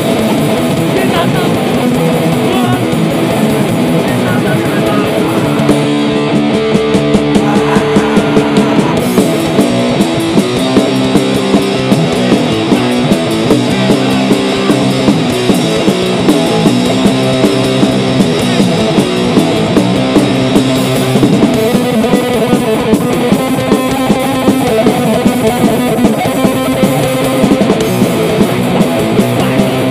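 Live thrashcore band playing loud and fast: distorted electric guitars over bass and a drum kit, with sharp drum hits repeating throughout.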